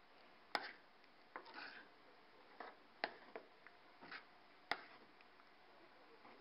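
A spoon stirring thick, mushy mung bean soup in a metal pot, faint, with irregular taps and scrapes against the pot and two sharper clicks, about half a second and nearly five seconds in.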